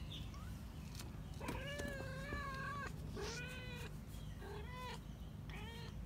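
Young kitten, just starting to walk and open its eyes, meowing four times: one long, high-pitched meow, then three shorter ones that get briefer each time.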